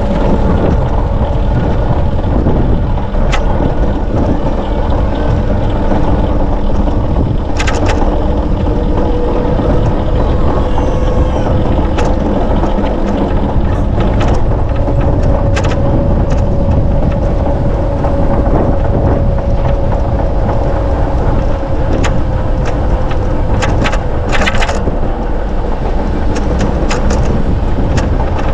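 Steady rush of wind and riding noise on the microphone of a moving bicycle. A faint hum wavers slightly in pitch through the middle, and scattered sharp clicks and rattles come throughout, several close together near the end.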